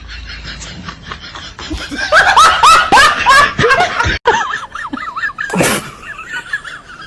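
Laughter in a run of quick, loud bursts starting about two seconds in, cut off abruptly a little after four seconds; wavering high-pitched calls follow.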